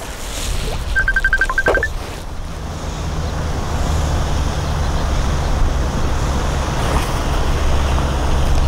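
A steady low engine-like hum that builds from about two seconds in, with a short run of rapid ticks about a second in.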